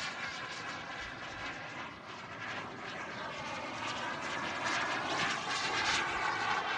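Kingtech 140 turbine of a model BAE Hawk jet in flight, a steady rushing jet whine that grows louder through the second half as it passes.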